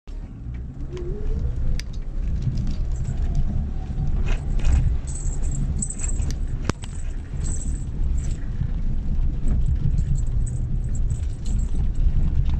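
Mitsubishi Pajero Mini driving along a forest road: a steady low engine and road drone, with scattered knocks and rattles from the bumpy surface.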